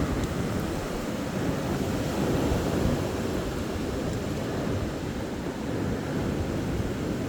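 Strong wind gusting to 40–50 mph, heard from indoors as a steady low rushing noise that eases a little partway through and picks up again near the end.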